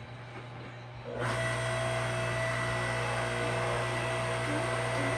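Electric log splitter's motor and hydraulic pump running, a low hum that jumps to a louder, steady machine whine about a second in.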